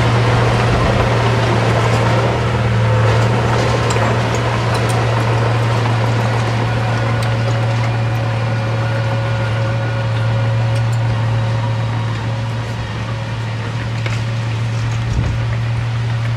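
Diesel engine of heavy earth-moving machinery running at a steady speed, a continuous low hum with a few steady higher tones over it.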